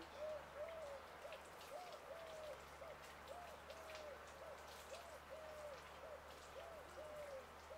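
A bird calling steadily: a repeated pattern of short, rounded hooting notes, about two a second, alternating short and longer ones, over faint crackling.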